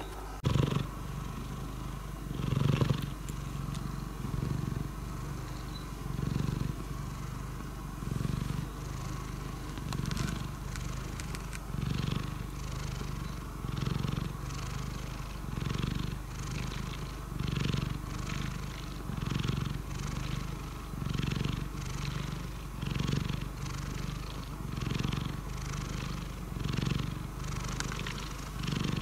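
Domestic cat purring steadily, the purr swelling and fading about every two seconds with each breath.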